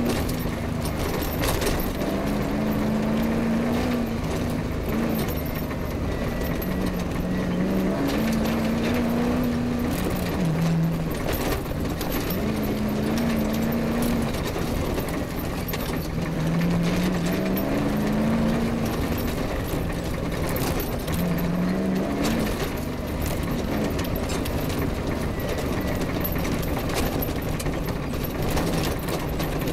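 Off-road rally vehicle's engine heard on board, driven hard, its note climbing and dropping again and again as it accelerates and changes gear. Frequent knocks and rattles come from the vehicle jolting over a rough grass track.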